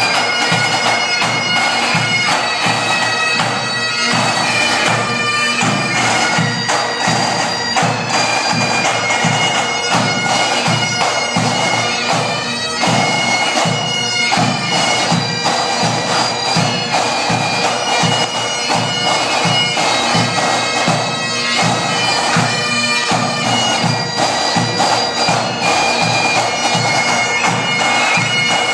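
A pipe band playing a tune: several Highland bagpipes sounding the melody over their steady drones, with snare drums beating a fast, even rhythm underneath.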